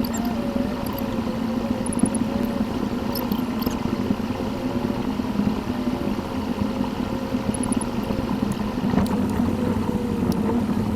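Car driving noise picked up by a dashcam inside the car and played back sped up: steady engine and road noise with a slowly wavering engine tone.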